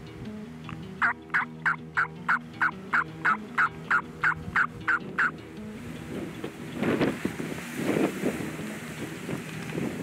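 A run of about fifteen evenly spaced turkey yelps, roughly three a second, lasting about four seconds. They are followed by wind gusting on the microphone in the second half.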